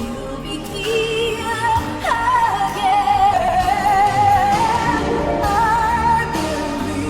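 Ballad music: a high melody line held with wide vibrato over accompaniment, dipping in pitch about two seconds in.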